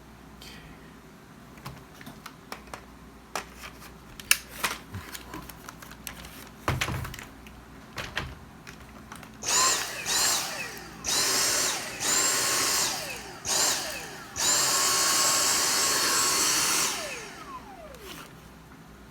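Handheld power drill run in six short bursts in the second half. Each time it whirs up to speed, holds a steady whine and winds down, and the last run is the longest. Before that come scattered clicks and knocks of plastic parts and tools being handled.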